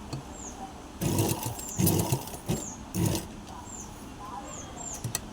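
Sewing machine stitching in a few short runs of a second or less, each a quick rattle, followed by two light clicks near the end.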